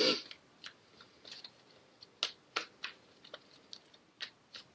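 Irregular light clicks and taps, a dozen or so spread over a few seconds, as tarot cards are handled on the table during a spread.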